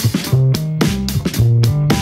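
Background music with a bass line over a steady drum beat of about four hits a second.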